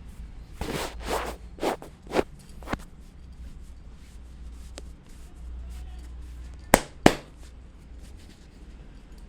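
Hand strikes of a massage on the head and body: a quick run of about six slaps and taps that get weaker, then two sharp, loud clicks about a third of a second apart.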